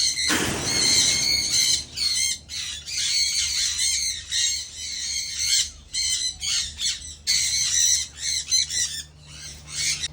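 A flock of parrots squawking, with many harsh calls repeating and overlapping. A louder, coarser burst comes in the first second.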